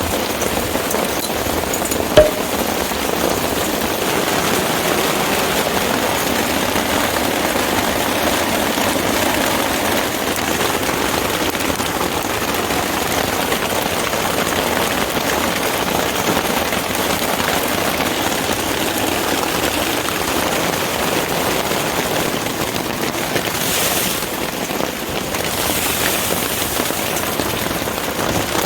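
Heavy rain pelting down in a dense, steady hiss during a monsoon thunderstorm, with one sharp, loud knock about two seconds in.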